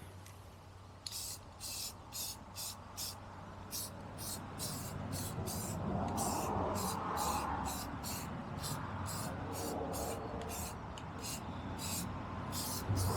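Aerosol spray can spraying coating onto truck suspension parts in short, repeated bursts, about two a second.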